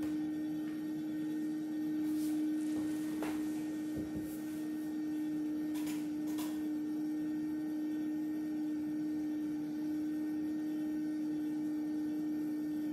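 Steady single-pitched hum from a self-playing accordion cabinet's machinery, with a few faint clicks.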